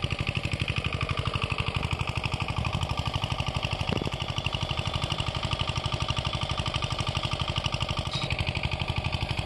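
A small engine running steadily nearby, an even chugging of about a dozen beats a second.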